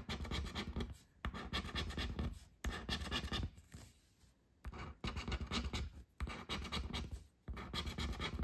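A coin scratching the latex coating off a paper scratch-off lottery ticket, in runs of quick rasping strokes with brief breaks and a pause of about a second near the middle.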